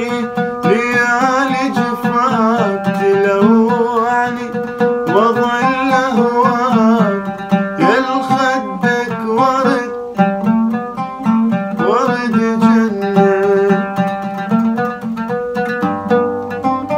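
A man sings an old Iraqi song with gliding, ornamented phrases, accompanying himself on an oud plucked in quick repeated notes. In the last few seconds the voice drops out and the oud plays on alone.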